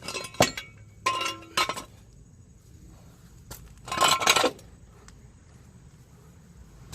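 Steel jack stand being set in place under the car, giving three short metallic clanks with a brief ring: two close together near the start and one about four seconds in.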